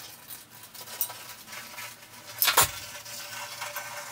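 Manual caulking gun being squeezed as a bead is run along a tiled shower joint: light metal clicks from the trigger and plunger rod, with one louder clack about two and a half seconds in.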